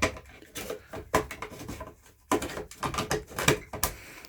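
A run of irregular sharp knocks and clicks, like things being handled and bumped close by.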